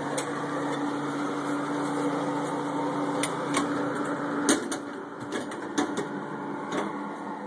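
Refrigerated soda vending machine's cooling unit running with a steady hum. Several clicks and knocks from the machine's door being handled come in the second half; the hum's tone drops out at the loudest knock, a little past halfway.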